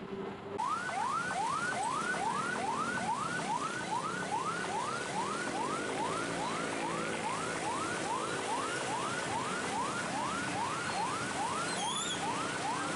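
Ambulance siren in a fast yelp: a rising sweep repeated about two and a half times a second, starting about half a second in. Underneath runs a steady hum of many idling motorcycle engines.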